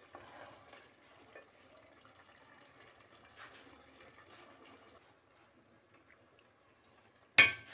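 Rice pulao with meat and vegetables simmering and sizzling faintly in an aluminium pot as the last water cooks off, stirred with a wooden spatula, with a few light scrapes. Near the end comes one short, loud knock.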